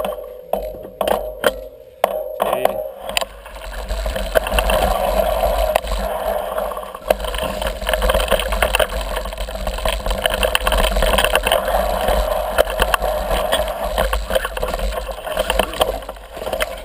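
Mountain bike rolling over a rough dirt and stone trail, its frame and chain rattling with many small knocks. The first few seconds hold separate sharp knocks, then a dense, steady rattle and rush.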